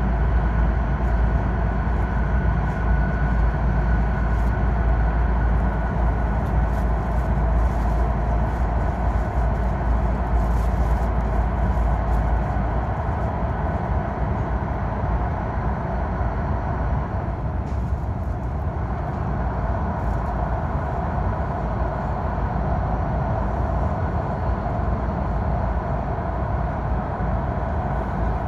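Steady running noise of a Shinkansen bullet train at speed in a tunnel, heard from inside the passenger cabin: a deep rumble under a dense hiss. The deepest part of the rumble eases a little about halfway through.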